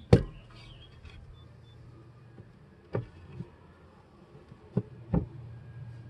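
Wooden top bars of a horizontal beehive knocked and set into place by hand: one loud sharp knock at the start, then two pairs of softer knocks about three and five seconds in. Under it runs a steady low hum of honeybees.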